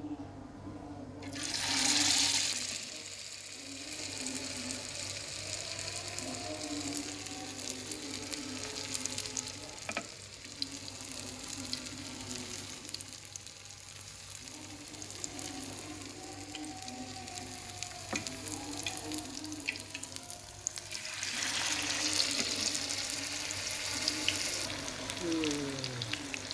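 Battered stuffed tofu deep-frying in hot oil: a steady sizzle that swells loudly about two seconds in and again around twenty-one seconds in.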